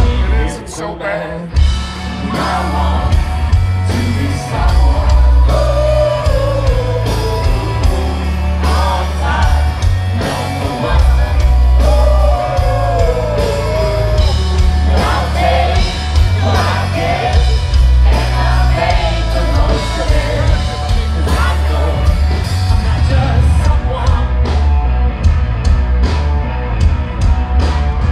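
Live band playing loud through a PA: a male lead singer sings and shouts over drums, guitar and a heavy low end, with busy drum and cymbal hits near the end.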